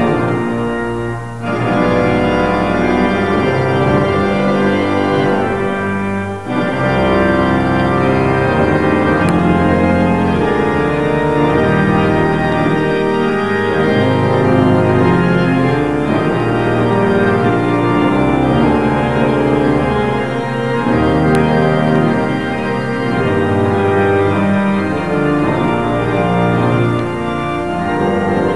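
Organ music: slow sustained chords that change every second or two, with two brief dips in loudness near the start.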